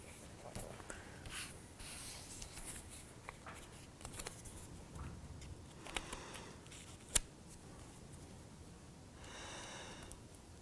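Faint rustling and light taps from handling a sheet of vellum and small laser-cut kit parts, with one sharp click about seven seconds in and a brief hiss near the end.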